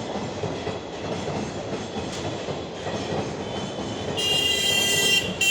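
Passenger train rolling past with steady wheel-on-rail rumble and clickety-clack. About four seconds in, a loud shrill steady tone starts, breaks briefly near the end, then sounds again.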